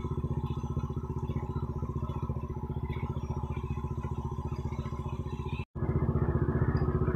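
Motorcycle engine running steadily with an even pulsing beat. It cuts out for an instant about two-thirds through and comes back a little louder.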